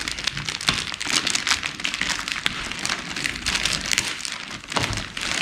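Plastic packaging crinkling and rustling in a dense crackle as the laptop is handled and unwrapped.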